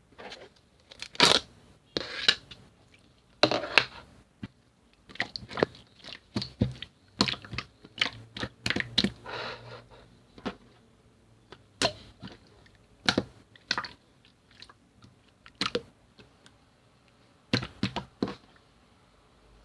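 Tough, chewy slime being worked by hand, giving irregular sticky pops and crackles in uneven clusters.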